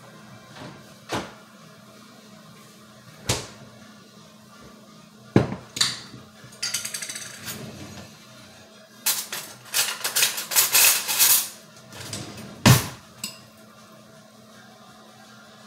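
Kitchen handling noises: a few separate knocks of glass jars and utensils set down on a countertop, and a couple of seconds of dense clattering past the middle, followed by one loud knock.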